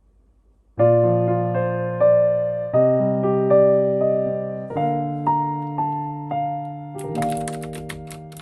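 Electric piano music: sustained chords that change about every two seconds, each fading away. About seven seconds in, a rapid run of sharp clicks joins in, about six a second, like keys being typed on a keyboard.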